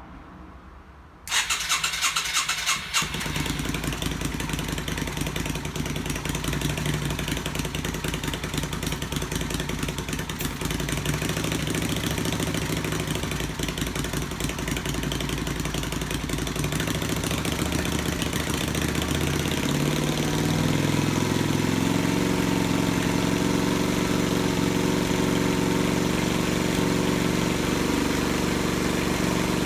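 Yamaha XV250 Virago's air-cooled V-twin, fitted with Daytona drag pipes, starting up about a second in after a brief rough stretch of cranking and catching, then running at idle. About twenty seconds in, the idle settles into a steadier, slightly louder note.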